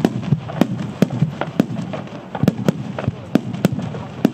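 A starmine barrage of aerial firework shells: sharp bangs of bursting shells about three times a second, irregularly spaced, over a continuous rumble.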